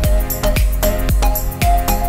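Background music with a fast, steady beat, heavy bass and a held melody line.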